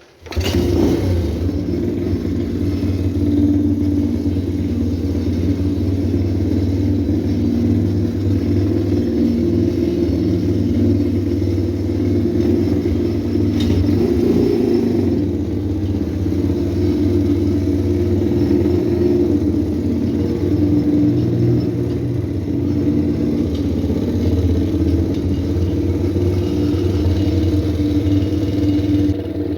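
Pit bike's single-cylinder engine running steadily at low to moderate revs, coming in suddenly at the start, with small rises and dips in speed.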